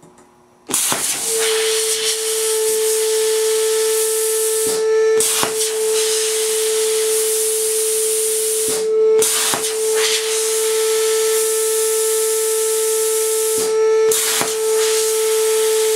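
Plasma cutter hissing as it cuts holes in sheet metal, with a steady whine under the rush of air. It starts about a second in and stops briefly three times between holes.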